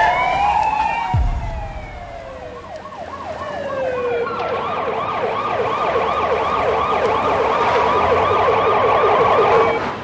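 Police car sirens: several wail together at first, their pitches sliding and overlapping, with a short low thud about a second in. From about four seconds in a fast yelp siren pulses rapidly up and down, then cuts off just before the end.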